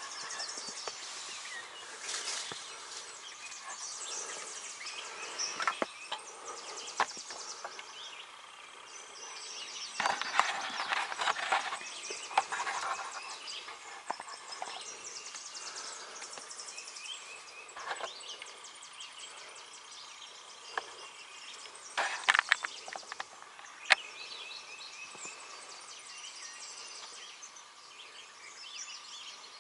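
Outdoor woodland ambience with songbirds chirping throughout, broken by a few short rustles and sharp snaps of dry leaves and twigs, the loudest rustles about ten seconds in and again a little past twenty seconds.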